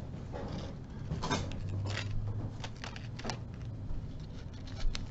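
Small metal starfish charms clinking and rustling as they are handled, a run of light clicks over a low background hum.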